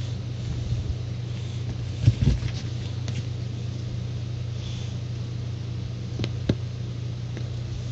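Steady low hum, with a few soft knocks about two seconds in and twice more around six seconds.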